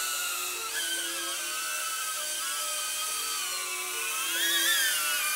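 DJI Avata FPV drone's propellers whining in flight, the pitch wavering, then rising and swelling briefly about four and a half seconds in as the drone manoeuvres in close for landing.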